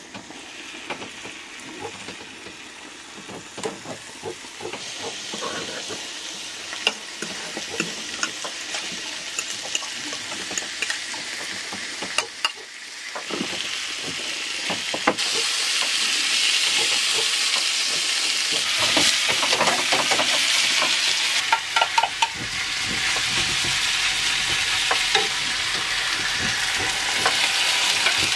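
Fish fillets sizzling as they sear in oil in a frying pan. The sizzle grows louder in steps, about five seconds in and again around the middle, with scattered sharp clicks and taps.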